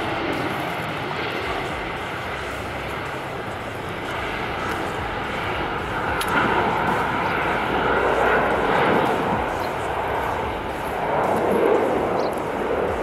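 Embraer E-Jet airliner's turbofan engines at takeoff thrust during the takeoff roll, a steady jet rush that grows louder about halfway through as the aircraft passes.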